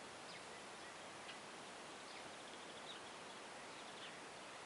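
Quiet outdoor background hiss with a few faint, short, high bird chirps scattered through it.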